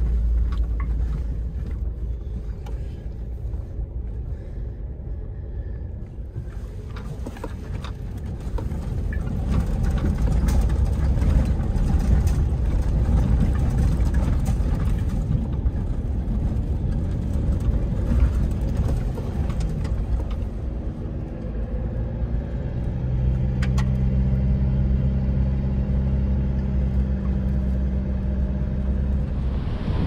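A Mitsubishi four-wheel drive's engine running with a low rumble of tyres and road, swelling in the middle. In the last third it settles into a steady hum of constant pitch.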